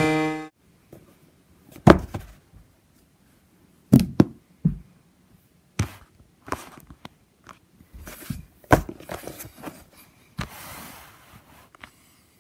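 Handling noise in a small room: scattered dull thumps and knocks, about a dozen spread over several seconds, as a camera and a cardboard box are moved about and set down, with a short rustle about ten seconds in.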